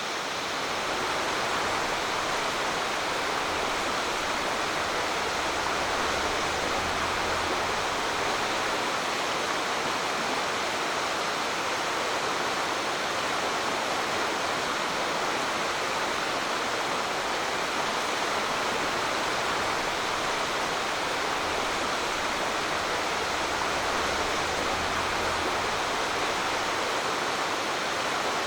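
Mountain stream rushing over rapids: a steady, even roar of water that swells slightly about a second in.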